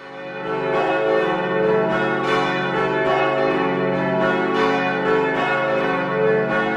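Church bells ringing, many bells struck one after another in a continuous peal, fading in over the first second.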